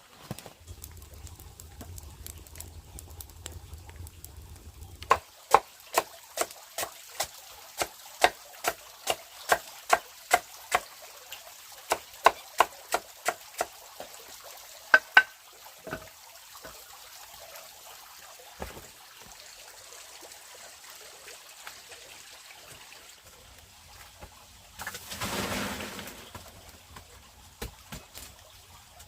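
Chopping with a blade on wood in steady strokes, about two to three a second, for roughly ten seconds. A few scattered knocks follow, and there is a brief rushing sound near the end.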